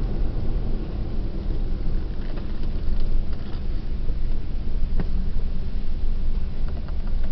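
Steady low road and engine rumble inside a car's cabin while driving on a highway, with one brief click about five seconds in.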